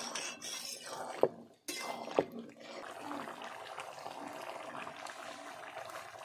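Chicken curry simmering and bubbling in a metal kadai over a wood fire, its water just added to the fried meat. Two sharp knocks of the metal ladle against the pan come about one and two seconds in.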